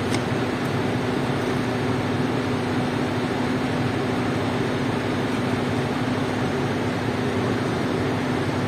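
Putzmeister concrete pump truck running at a steady speed, a constant machine hum with even noise over it, while the newly fitted high-pressure water pump is tested.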